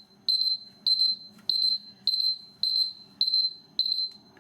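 Digital timer going off: a single high-pitched electronic beep repeated at an even pace, just under two beeps a second, signalling that the set lathering time is up.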